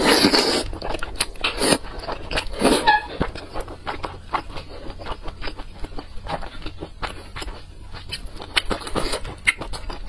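Close-miked eating of wide flat noodles in chili oil: a loud wet slurp at the start and a couple more soon after, then steady wet chewing with many small sticky mouth clicks and smacks.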